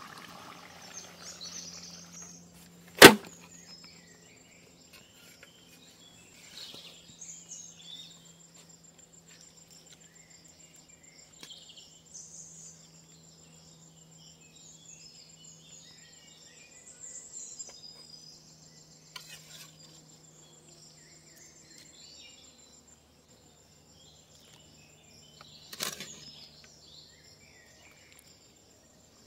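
Outdoor ambience: a steady high insect trill with scattered bird chirps. A single sharp knock comes about three seconds in and a fainter one near the end.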